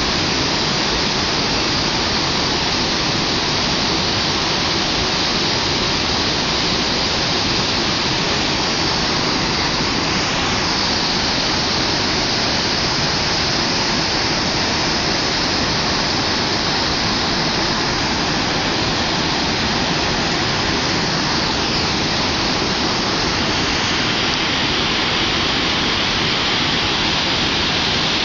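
Fast river water rushing over rocks in rapids, a loud, steady noise with no breaks.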